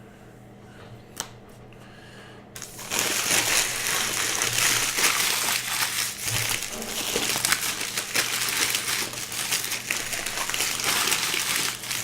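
Card-pack wrappers crinkling and being crumpled by hand, starting loud and continuous about three seconds in after a single click.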